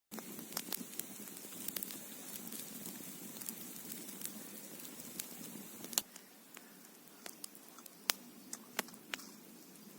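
Wood fire crackling, with scattered sharp pops. A steadier low noise sits under the crackle and drops away about six seconds in, leaving only the pops.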